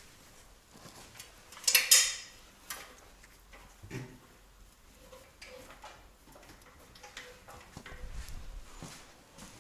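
Scattered clicks and light knocks from metal fastening parts being handled, with one louder scraping clatter about two seconds in.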